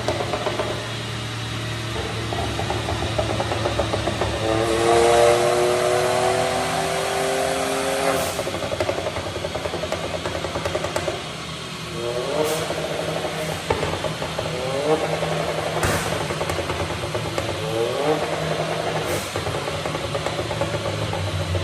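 VW Up TSI's turbocharged 1.0-litre three-cylinder engine, just remapped to Stage 2, revving hard. There is one long rising pull a few seconds in, then several short rising revs, punctuated by sharp cracks.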